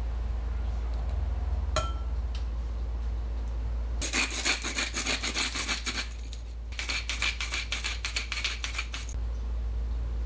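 Hand-twisted spice grinder grinding over toast: a rapid rasping clicking in two bursts of about two seconds each, with a short pause between them.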